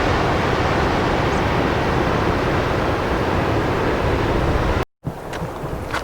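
Loud, steady rushing of wind buffeting the microphone on an exposed coastal lookout, with surf mixed in; it cuts off abruptly about five seconds in.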